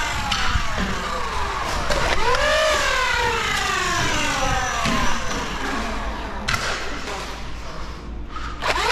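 Flywheel Nerf blaster motors revving: the whine shoots up in pitch and then winds slowly down over several seconds, with a fresh spin-up about two seconds in and another near the end.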